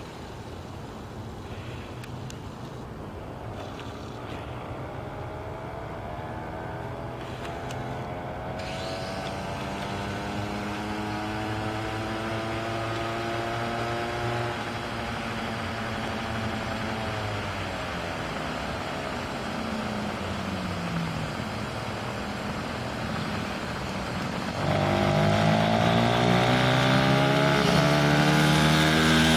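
Small motorcycle engine riding around, at first from afar, its pitch rising and falling with the throttle. About 25 seconds in it gets suddenly much louder as the bike comes close.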